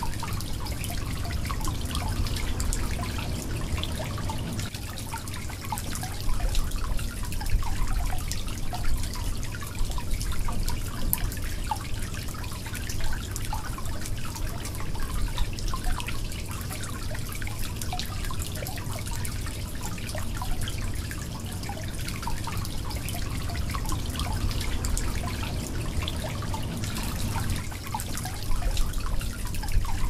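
Shallow stream running over rocks, a steady babble of flowing water full of small gurgles and splashes.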